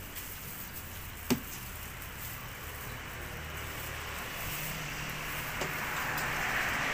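Hand-lever plastic cup sealing machine in use: one sharp click about a second in, over a steady low hum and a hiss that grows louder near the end.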